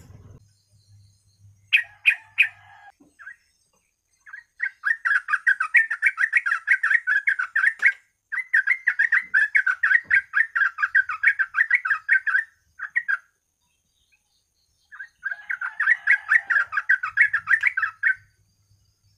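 Yellow-vented bulbul (trucukan) singing in three long runs of rapid chattering notes, each a few seconds long with short gaps between, after a few sharp call notes about two seconds in.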